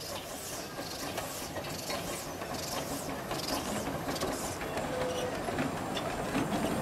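Small narrow-gauge steam locomotive working slowly past: exhaust chuffs in a steady beat of about two a second over the clank and rattle of its running gear and wheels, growing a little louder as it draws near.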